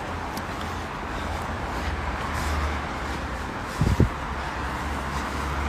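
Street ambience through a phone's microphone: a steady hiss of road traffic with a low wind rumble on the microphone. Two brief low thumps come close together about four seconds in.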